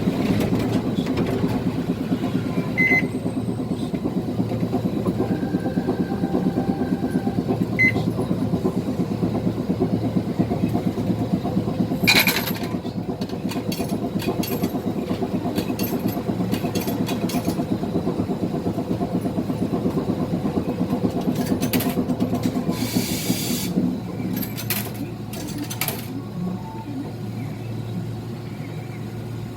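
Iyotetsu streetcar standing still at a signal, heard from aboard: a steady low hum from the stopped tram, with scattered clicks. About three quarters of the way in there is a short hiss, after which the hum gets a little quieter.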